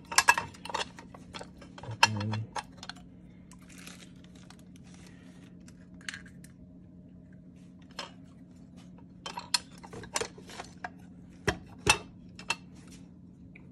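Small metal parts clicking and clinking as an Autolite 2100 carburetor is handled on a workbench and small brass parts are picked from a parts tray. The clicks come in irregular clusters, busiest at the start and again near the end, over a faint steady hum.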